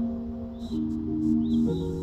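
Yamaha electronic keyboard playing slow, sustained chords that change twice.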